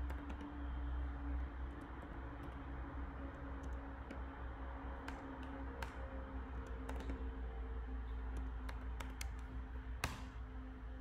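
Typing on a computer keyboard: scattered key clicks, with one louder key press near the end, over a low steady hum.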